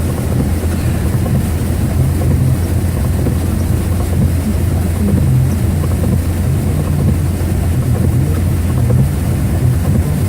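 Steady low rumble of a pickup truck driving on a storm-soaked road, heard inside the cab: engine and road noise with a constant wash of wind or water noise over it.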